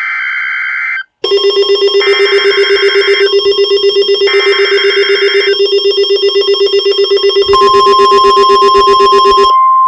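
NOAA Weather Radio emergency alert: three one-second bursts of buzzing SAME header data announcing a new severe thunderstorm warning, with a weather radio receiver's rapid pulsing alarm beeping over them. About seven and a half seconds in, the steady 1050 Hz warning alert tone starts.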